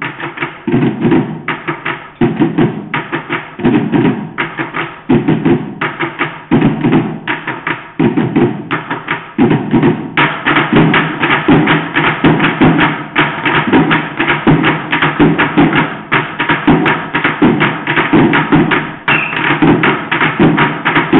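Percussion ensemble drumming on buckets with sticks: a fast, steady run of strokes with regular heavier low accents. It grows fuller and louder about halfway through.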